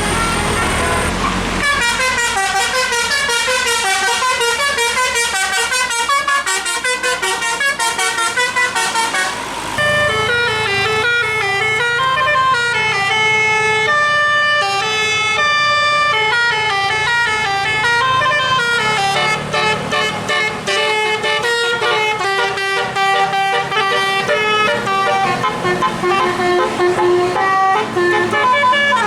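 Bus telolet horns playing long melodic tunes, quick runs of notes stepping up and down without a break; the tune changes about ten seconds in.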